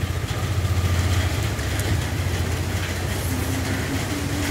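Traffic on a rain-wet street: a steady low motor rumble with a light hiss of rain and wet tyres. A faint steady engine tone joins near the end.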